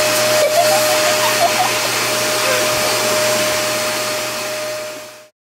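Loud, steady whoosh of a household appliance's electric fan motor, with a steady whine over it, that fades slightly and cuts off about five seconds in.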